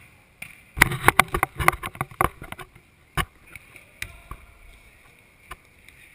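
Knocks and thuds of football play on artificial turf in an echoing indoor hall: a rapid flurry of sharp knocks, then one loud knock about three seconds in, followed by a few faint taps.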